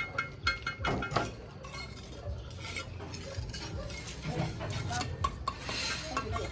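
Quick light metallic clinks and taps, several a second, with a louder knock about a second in.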